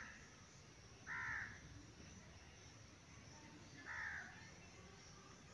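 Short animal cries over faint background hiss: one about a second in and another about four seconds in, each brief and arching up then down in pitch.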